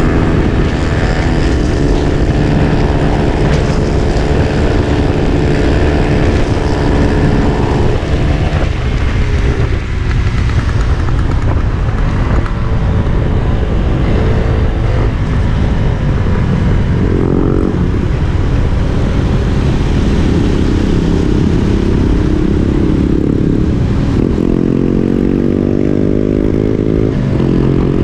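Small single-cylinder motorcycle engine running under way, heard from the rider's seat with wind rumbling on the microphone. The engine note drops back about eight seconds in and rises steadily in pitch near the end as the bike accelerates.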